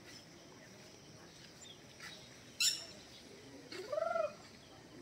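A single sharp click about two and a half seconds in, then one short animal call that rises and falls in pitch about four seconds in.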